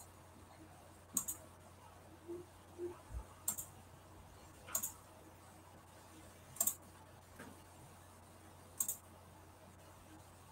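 Computer mouse clicking: about five short, sharp clicks a second or two apart, some in quick pairs, over a faint low hum.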